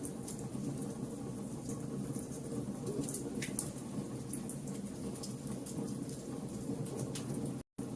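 Fire crackling, with irregular sharp pops and snaps over a steady low roar of burning. The sound cuts out completely for a split second near the end.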